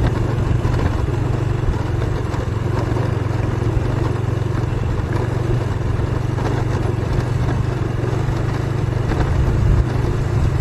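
Motorcycle engine running steadily while riding along a rough track, with some rattle over the ground.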